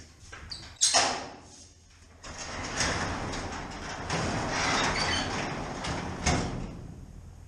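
Metal sectional garage door being raised by hand: a loud clank about a second in as it starts to move, then the rollers rumble along the tracks for several seconds, with a knock near the end as the door goes overhead.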